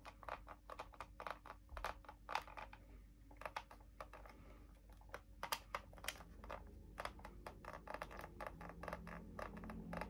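Faint, irregular clicks and taps of small model parts being handled and pressed together as cables are squeezed under a tab.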